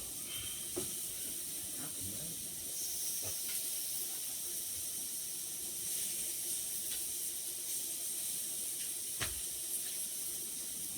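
Steady hiss of a hot pot's broth steaming, over a faint steady hum, with a few light clicks and one sharper knock about nine seconds in.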